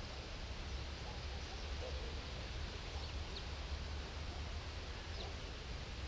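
Quiet outdoor ambience: a steady low rumble under a light hiss, with a few faint, short, high bird chirps about halfway through and near the end.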